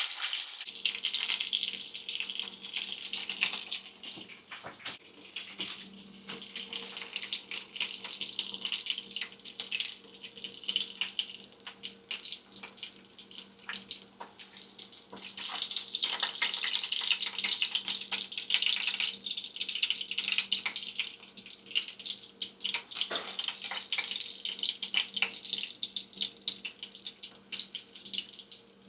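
Food sizzling and crackling as it fries in oil and butter in a pan, just turned to cook its other side, swelling louder in stretches, with a steady low hum underneath.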